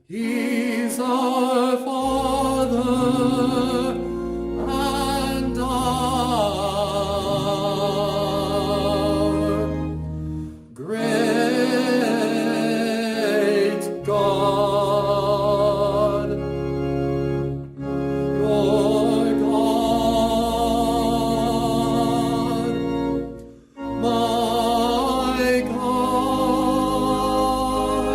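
A singer with wide vibrato performs a sacred song over sustained organ chords, pausing briefly between phrases.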